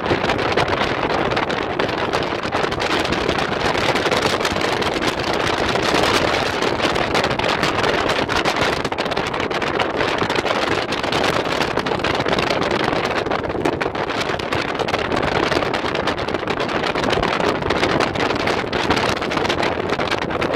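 Off-road vehicle driving fast over a rough gravel desert track: a steady rush of engine, tyres on stones and wind.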